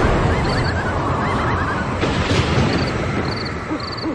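Night-time ambience sound effect: a steady rushing hiss like wind, with short, repeated high chirps and a few brief warbling calls over it.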